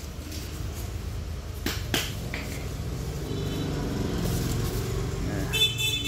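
Foam packing sheet and plastic wrap rustling as hands unwrap a robot vacuum in its box, with two sharp clicks about two seconds in. Under it runs a steady low rumble of traffic, and a short high tone sounds near the end.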